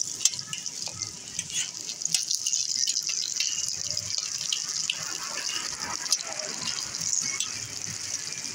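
Oil sizzling steadily under aloo parathas frying on a large flat griddle, with scattered crackles and ticks.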